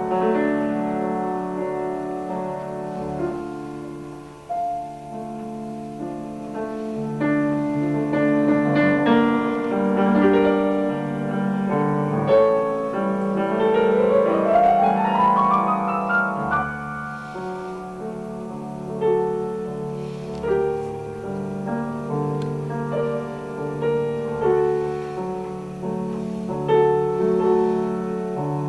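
Piano being played: a flowing piece of chords and melody, with a quick upward glissando about halfway through.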